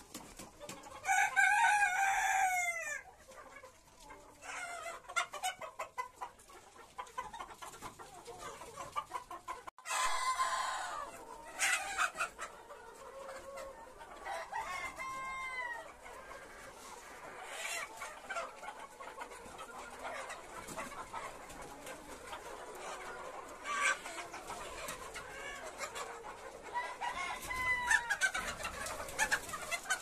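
A flock of Sonali chickens clucking and calling. A rooster crows about a second in, the loudest sound of the stretch, and more long drawn-out calls follow around ten, fifteen and twenty-seven seconds in.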